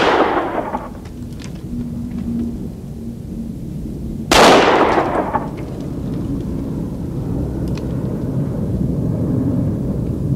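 Revolver shots fired single action: the ringing tail of one shot at the start and another sharp shot about four seconds in. Faint clicks fall between the shots as the hammer is cocked by hand.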